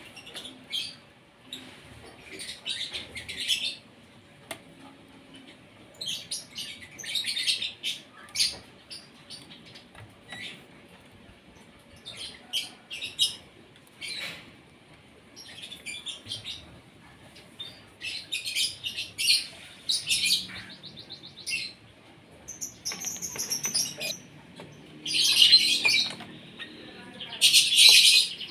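Asian pied starling (jalak suren) giving repeated bursts of rapid, chattering high-pitched calls and song, in irregular clusters, loudest near the end.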